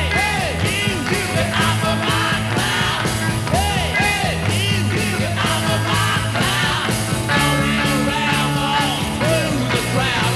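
Rock and roll song playing from a jukebox, with a steady drum beat and bass.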